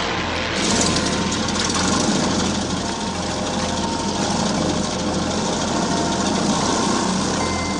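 Propeller aircraft engine idling steadily.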